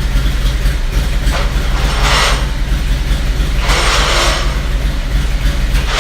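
A motorcycle engine idling steadily, with two short noisy bursts about two and about four seconds in.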